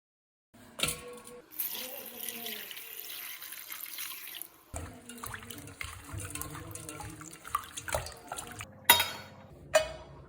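Water running from a kitchen tap, with small clicks and a couple of sharp knocks near the end.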